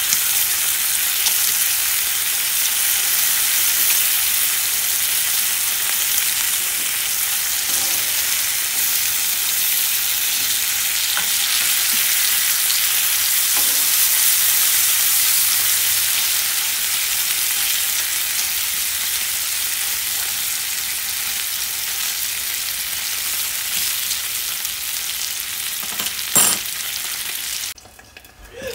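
Bacon frying in a pan, a steady loud sizzle with occasional faint pops. Near the end there is one sharp knock, and then the sizzle drops away abruptly.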